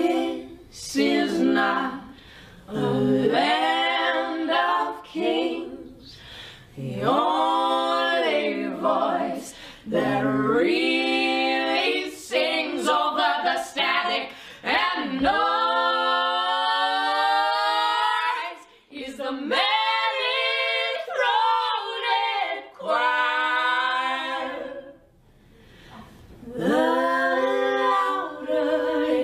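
Unaccompanied singing by a small group of women's voices in harmony, in phrases with short breaks between them; about halfway through, one long note is held with a slight waver.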